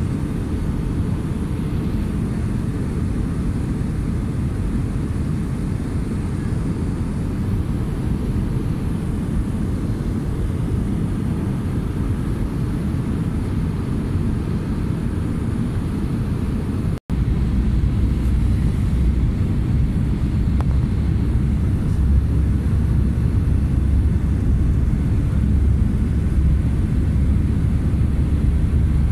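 Steady jet engine and airflow rumble heard inside an airliner cabin during its descent. It cuts out for an instant about two-thirds of the way in and resumes with a deeper, stronger low rumble.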